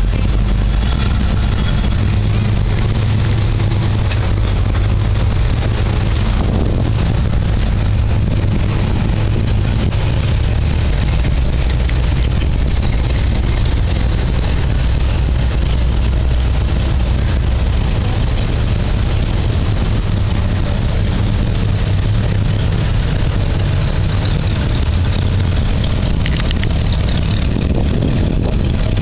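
Engines of several classic American cars and trucks idling and driving slowly past one after another: a steady, loud low engine drone whose pitch shifts as vehicles move up and pull away.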